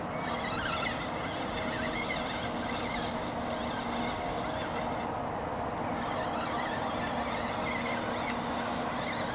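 A 30 hp outboard motor running steadily at low speed, pushing a small fishing boat along the river, with a constant engine hum over water noise.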